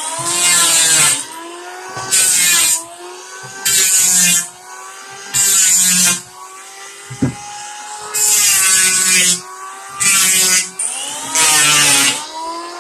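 Electric wood planer running, with seven passes across the wood about every one and a half to two seconds. Each cut brings a loud burst of cutting noise that drags the motor's whine down in pitch, and the whine climbs back up between passes. A single sharp click about seven seconds in.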